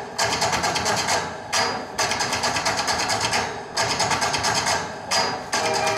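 Freestyle routine soundtrack over PA loudspeakers: a rapid mechanical-sounding rattling rhythm of about seven pulses a second, in phrases of about a second and a half broken by short gaps. Near the end, steady sustained tones of orchestral music come in.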